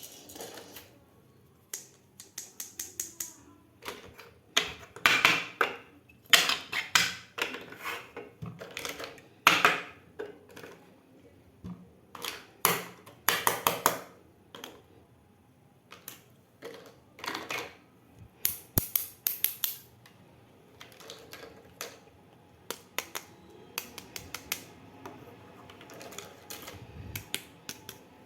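Small plastic toy kitchen pieces being handled and unboxed, clicking and tapping against each other in irregular clusters with short quiet pauses.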